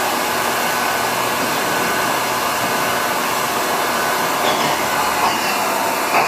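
Mori Seiki MV-653/50 vertical machining center's spindle running steadily at about 4,800 RPM, an even hiss-like machine noise.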